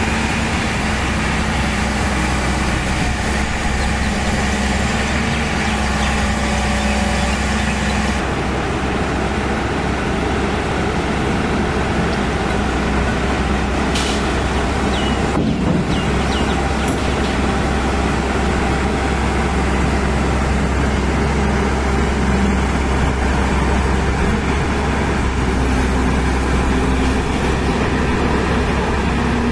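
JCB 215 LC tracked excavator's diesel engine running steadily as the machine drives down off a low-bed trailer, with a short sharp sound about halfway through.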